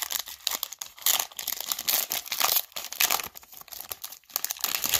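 Foil wrapper of a trading-card pack being torn open and peeled back, crinkling with many quick, sharp crackles.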